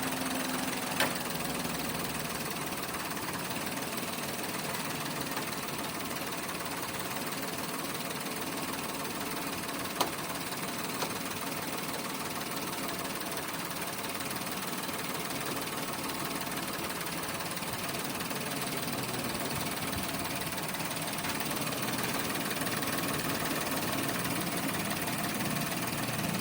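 Toyota Wigo's three-cylinder engine idling steadily, with a few sharp clicks about a second in and again around ten and eleven seconds.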